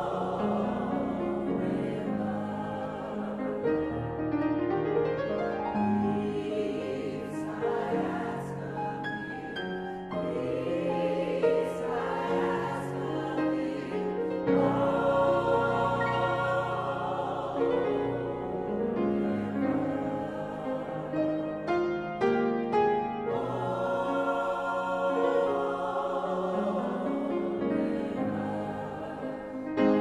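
Mixed chorus of men's and women's voices singing in harmony, accompanied by grand piano.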